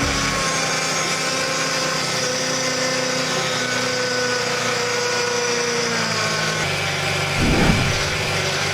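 Freshly overhauled six-cylinder engine of a Mercedes-Benz GLK300 running at a steady idle, with a short low rumble near the end.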